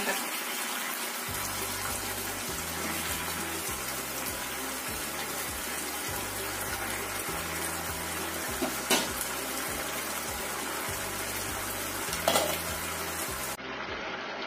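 Chicken in thick tomato sauce sizzling and bubbling in a frying pan as it cooks down until nearly dry and thickened, a steady hiss with two sharp clicks, one about halfway and one near the end. Background music with a low bass line comes in about a second in.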